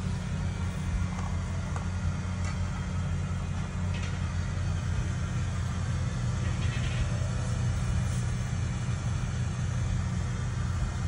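Steady low rumble of a horse trailer being towed, heard from inside the trailer, with a few faint short rattles and clicks.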